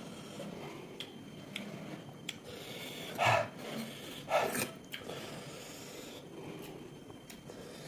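Close-up eating sounds of a person chewing pork, with small clicks and rubbing textures. Two louder short sounds come about a second apart, just before the middle.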